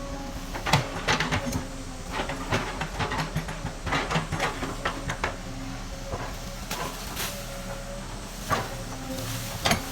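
Excavator at work: a steady low engine hum with repeated metallic clanks and knocks and short squeals.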